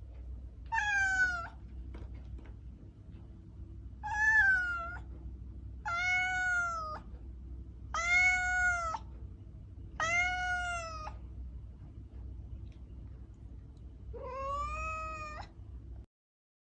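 Cat yowling during mating: six drawn-out meowing calls, each about a second long and about two seconds apart, over a steady low hum. The sound cuts off suddenly near the end.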